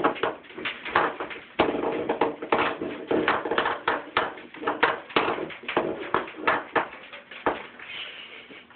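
Irregular taps and knocks, many of them, with an indistinct voice mixed in; it all thins out near the end.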